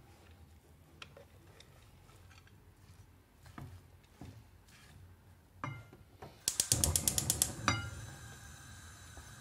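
A stove's control clicking rapidly, about a dozen sharp, even clicks in just over a second, about six and a half seconds in, followed by a faint steady hiss. Before that, a few light knocks of shredded carrot and zucchini and a silicone spatula in a nonstick frying pan.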